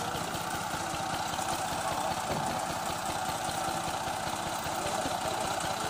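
Tractor's diesel engine idling steadily, with an even, unchanging rhythm.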